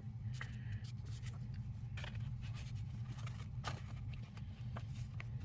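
Rustling and light clicks of paper and plastic packaging being handled, with a steady low hum underneath.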